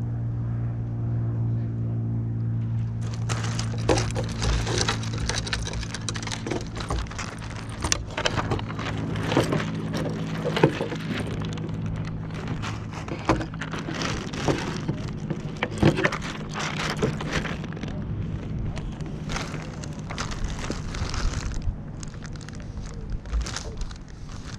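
The clear laminate sail of a US 12 sailboat luffing beside the microphone. About three seconds in, a dense crackling rustle with many sharp snaps starts. A steady low hum runs underneath and thins out near the end.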